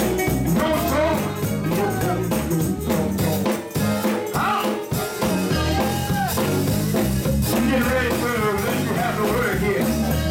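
Upbeat gospel music from a church band, with a steady bass line, drums and a voice singing over it.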